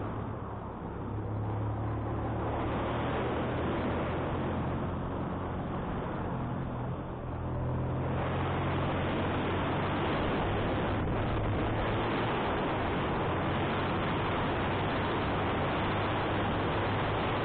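Motorcycle engine running steadily under wind noise on the rider's microphone. About eight seconds in, the wind noise grows louder and largely covers the engine hum.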